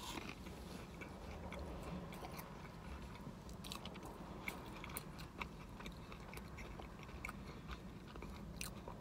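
Faint chewing of a bite of toast topped with roasted tomato, with small crunchy clicks scattered throughout.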